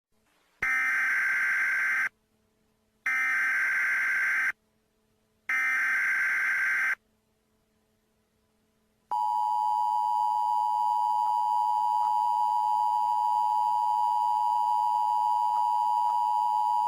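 Emergency Alert System tones: three bursts of SAME digital header data, about two and a half seconds apart. These are followed a couple of seconds later by the EAS two-tone attention signal (853 and 960 Hz sounded together), held steady for about eight seconds.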